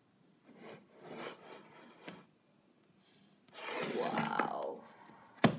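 Faint handling noises, then a short wordless vocal sound from a person, and a single sharp knock near the end, the loudest sound here.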